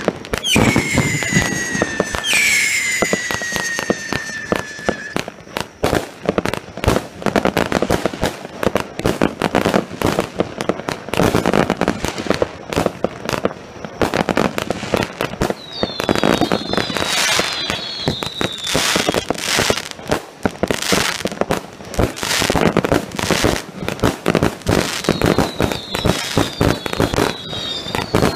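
Pronk Vuurwerk Back2Back Sound & Vision firework cakes firing: a dense run of shots and crackling bursts. A long falling whistle sounds in the first few seconds, and clusters of short falling whistles come about midway and again near the end.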